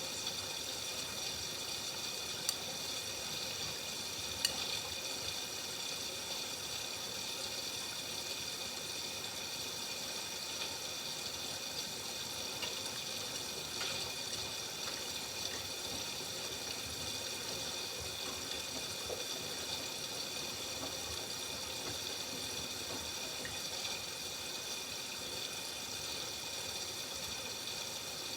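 Miele W5801 WPS washing machine taking in water through its inlet valve: a steady rush of water, with two faint clicks a few seconds in.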